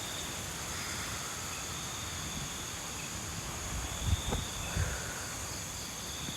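A steady high-pitched chorus of insects trilling, over the low rumble of wind on the microphone, with two short louder gusts or bumps about four and five seconds in.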